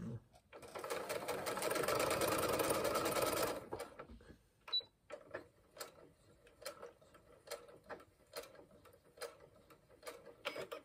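Brother domestic sewing machine running for about three seconds, stitching through the fabric at a steady fast pace, then stopping. Scattered light clicks and taps follow.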